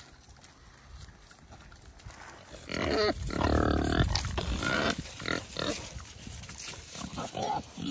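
Vietnamese pot-bellied pigs grunting as they eat, with one louder drawn-out call about three seconds in, followed by short irregular grunts.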